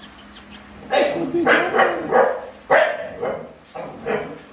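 Bully-breed dog barking several times in quick succession.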